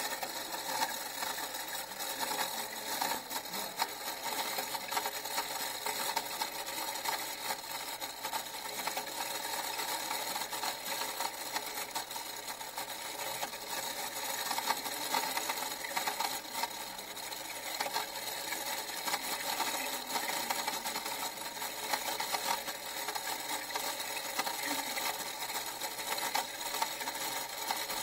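A small machine running with a fast, continuous mechanical clatter that stays even throughout.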